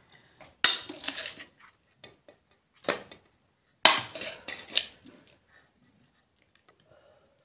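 Steel serving spoon scraping and clinking against a steel wok and steel plates as crab curry is served, in several separate clatters over the first five seconds.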